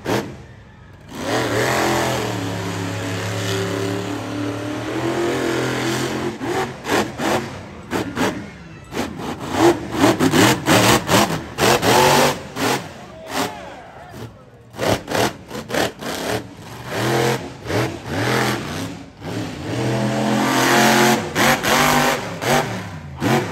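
Monster truck engine running hard, revving up and falling back in repeated short surges, with a few moments where the sound breaks off abruptly.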